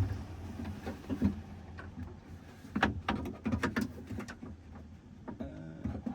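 Socket wrench clicking and knocking as a door-handle nut is tightened inside a pickup's door, in irregular clicks with a quick run of them about three seconds in. A short pitched sound, like a coo, comes near the end.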